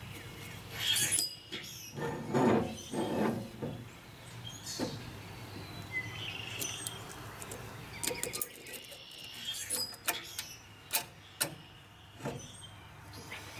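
A new brake drum and hub being worked onto a Dana 71 axle spindle. There is metal scraping and rubbing in the first few seconds, then a series of sharp clicks and knocks toward the end.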